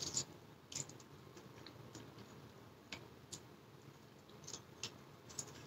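A person eating noodles: a short slurp as the noodles go into the mouth, then quiet chewing with a few faint, irregular mouth clicks.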